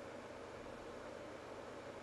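Faint, steady hiss of room tone and microphone noise, with no other sound.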